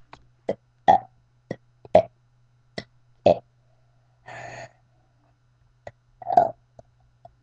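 A person burping the alphabet: a quick series of about ten short, separate burps roughly half a second apart, with a longer, breathier sound about halfway through and the loudest burp near the end. A faint steady low hum runs underneath.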